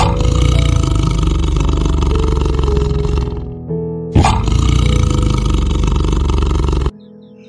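A tiger roaring twice, each roar about three seconds long, deep and starting suddenly, over piano music.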